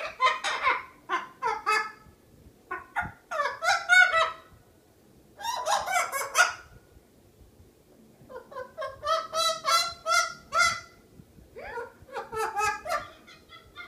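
Miligold macaw (military × blue-and-gold hybrid) vocalizing in five bouts of calls and chatter, each a second or two long with short pauses between.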